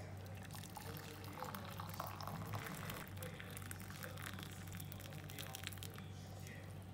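Water pouring from a kettle into a ceramic mug over a tea bag, a steady splashing stream as the mug fills.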